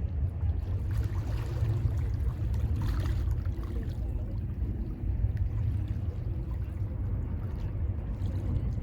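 Mediterranean Sea waves washing ashore: a steady low rumble with a hiss of surf that swells about a second in and again around three seconds in.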